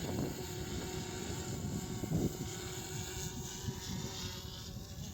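Propeller aircraft engine running steadily at a distance, with gusty wind rumbling on the microphone.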